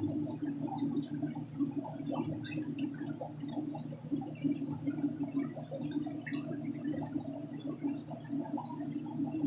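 Aquarium water gurgling and bubbling steadily from the tanks' filters and pumps, over a low steady hum.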